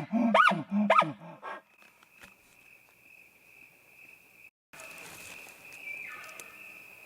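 The end of an elk bugle: a quick run of deep, pitched grunting chuckles in the first second and a half. After that, a steady cricket trill. Near the end comes a fainter call falling in pitch.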